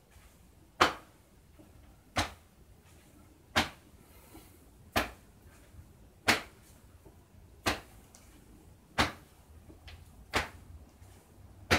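Open hands swung against the hips, slapping in an even rhythm: nine sharp slaps, about one every second and a half. This is a percussive self-massage.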